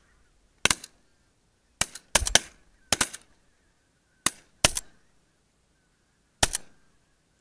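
Shotguns of two hunters firing at geese flying overhead: about ten shots in some six seconds, several in quick succession around two to three seconds in, the last one alone near the end.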